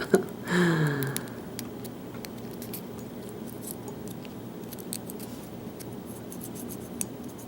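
Faint, scattered metallic clicks and ticks of small tools and pin-tumbler lock parts being handled as the lock is taken apart. A short hum of a voice comes about half a second in.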